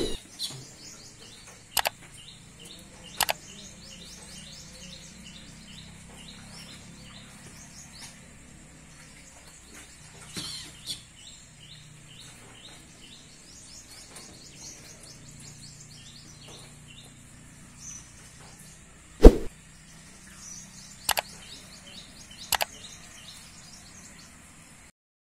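Small birds chirping in quick, continuous runs over a steady high-pitched drone. A few sharp clicks or knocks break in, and a louder knock comes about three-quarters of the way through.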